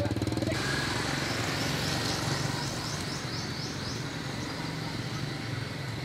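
A small engine running steadily.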